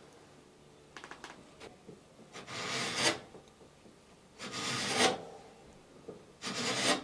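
Chisel paring shavings off the wooden transom of a clinker dinghy, to trim it so the plank sits tight: three scraping strokes about two seconds apart, each about half a second long, after a few light clicks about a second in.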